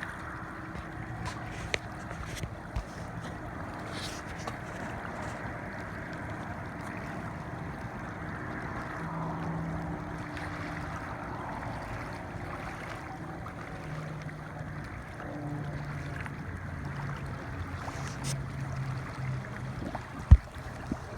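Steady wind and water noise outdoors, with scattered small clicks and one sharp knock near the end.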